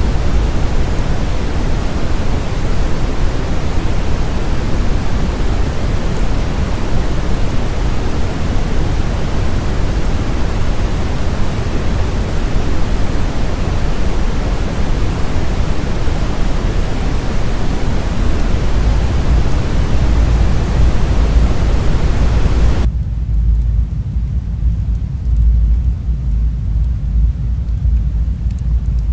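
A steady rushing noise over a deep rumble, with no distinct crackles or pops. About 23 seconds in the hiss cuts off suddenly, leaving only the low rumble.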